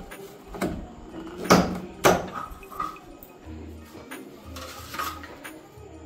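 Clear plastic refrigerator door shelves knocking and clattering as they are handled and fitted into the door, with the loudest knocks about a second and a half and two seconds in.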